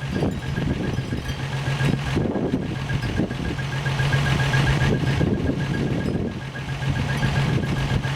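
1963 Rambler American engine, freshly rebuilt, running steadily at idle on its first run after the rebuild, with a faint fast-pulsing high-pitched chirp over the engine note.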